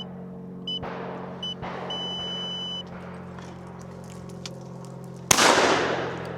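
Three short electronic beeps and then a longer one of about a second, all at one high pitch, followed about five seconds in by a single loud shotgun shot that rings away over a second, over a steady low hum.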